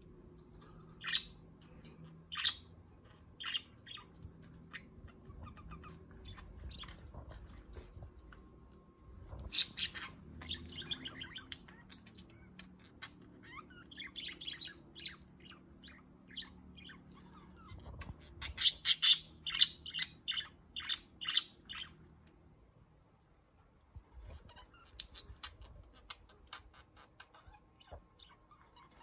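Caged budgerigars chirping and chattering in bursts of short, sharp, high chirps. The loudest run of chirps comes about two-thirds of the way through, followed by a short lull before the chirping picks up again.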